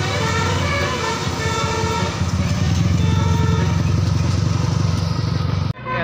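Telolet basuri bus horn playing a tune of shifting notes, with a motorcycle engine passing close underneath. Just before the end it cuts abruptly to a different horn tune.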